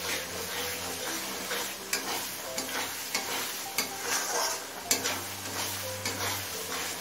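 A metal spatula stirring and scraping a thick masala paste around a metal kadai, with irregular scrapes and knocks over a steady sizzle as the paste fries in oil.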